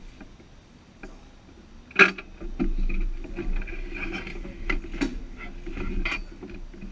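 Knocks, clicks and rustling as a driver climbs out of the cockpit of an open-top VW Beetle roadster, his body and suit bumping against the car's body and seat. A sharp knock about two seconds in is the loudest sound, over a steady low hum.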